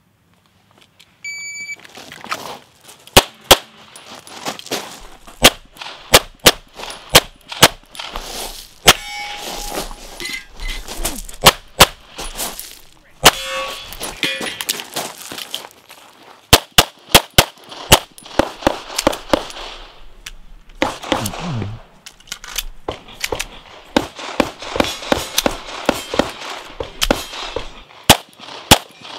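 Shot timer beeps about a second and a half in, then a 9mm CZ Shadow 2 pistol fires quick strings of shots through a USPSA stage. Several hits are followed by the ring of steel targets.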